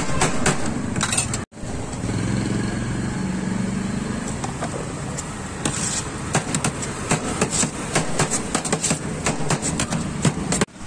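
A steel cleaver and spoon clacking and scraping against a steel tray as shredded shawarma chicken is chopped and turned, in quick irregular knocks, over a steady hum of street traffic.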